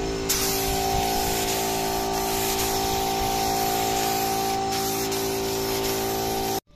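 Gravity-feed air spray gun hissing steadily as it sprays tinted varnish onto pine shelves, over a steady hum. The hiss grows stronger a moment in and stops abruptly near the end.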